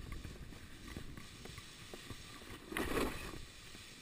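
Plastic sled sliding and scraping over snow as it is towed along, with a louder scrape about three seconds in.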